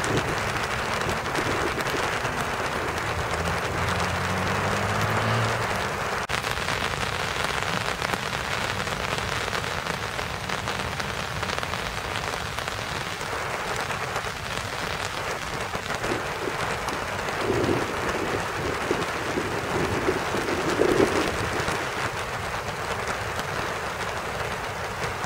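Steady rain falling on the rose bushes and garden. A faint low hum runs under it for the first five seconds, and there are two brief louder low swells in the second half.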